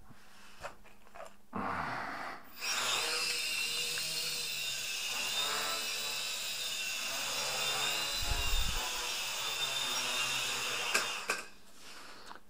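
A small quadcopter's motors and propellers spin up about two seconds in and hold a steady, high, slightly wavering whine while it hovers, then cut off about eleven seconds in. A brief low thump comes partway through.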